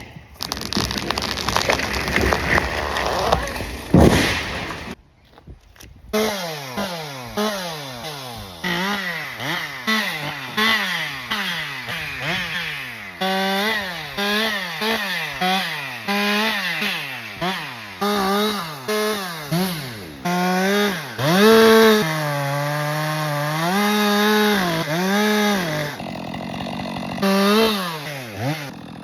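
Stihl two-stroke chainsaw revving up and down over and over as it cuts through ash logs, its engine pitch climbing under the throttle and dropping back between cuts. It is preceded by a few seconds of rushing noise that ends in a heavy thud about four seconds in.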